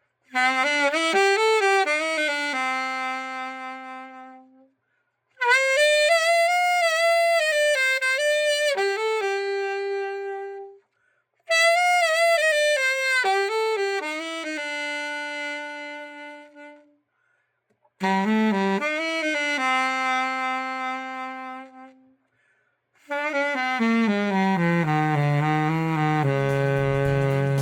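Yamaha YAS-62 alto saxophone played solo after a full overhaul: five short melodic phrases with vibrato, separated by brief pauses, the last settling on a held low note.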